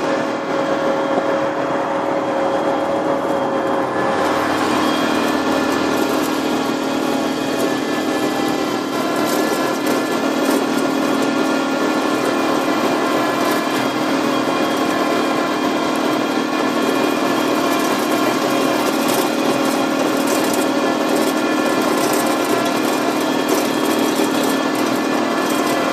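Electric tractor's motor and drivetrain whining at a steady pitch while it drives along, with intermittent crackling of gravel under the tyres.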